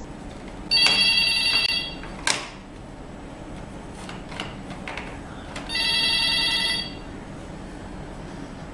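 Corded desk telephone ringing twice with an electronic ring, each ring a little over a second long and about five seconds apart. A brief sharp sound follows the first ring.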